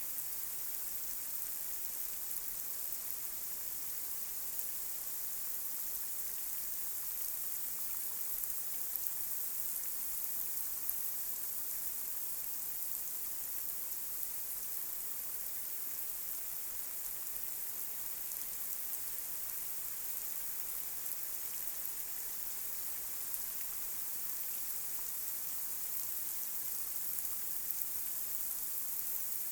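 Light rain falling steadily on a street, a constant high hiss with scattered faint drop ticks.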